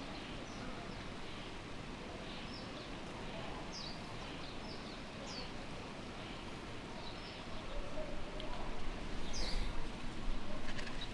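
Outdoor ambience: small birds give short, scattered chirps over a steady background hiss. A louder low rumble comes in near the end.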